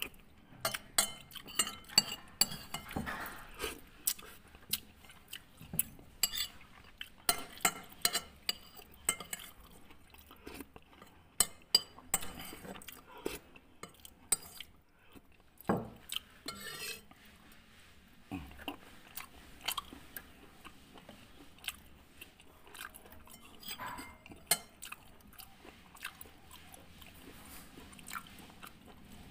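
Metal spoon clinking and scraping against a ceramic soup bowl in many quick, sharp taps, with chewing in between.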